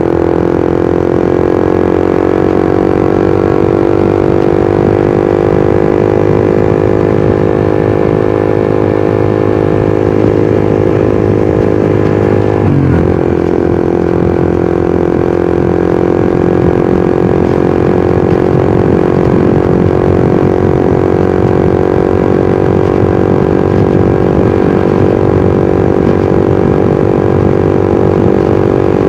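Suzuki GSX-R150's single-cylinder engine and exhaust under way: the pitch climbs gradually as the bike gains speed, then holds steady at cruising revs. About halfway through, the revs dip briefly and recover, as at a throttle lift or gear change.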